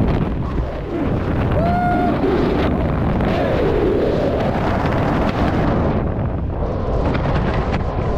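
Rushing wind in skydiving freefall, buffeting the camera's microphone as a heavy, steady low roar. A brief high tone rises out of it about two seconds in.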